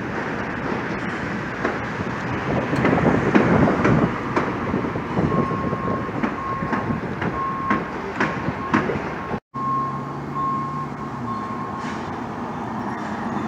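Construction-site machinery rumbling with scattered knocks, and from about the middle a vehicle's reversing alarm beeping about twice a second. The sound cuts out for an instant about two-thirds of the way through.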